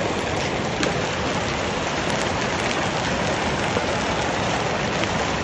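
Hail mixed with heavy rain pelting wet asphalt: a dense, steady hiss dotted with many sharp ticks of hailstones striking.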